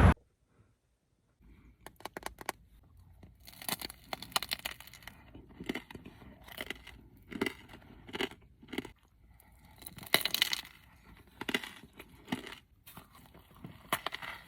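Close-miked tearing and crinkling in irregular clusters of short crackles with brief pauses between, as food and its wrapping are handled before eating.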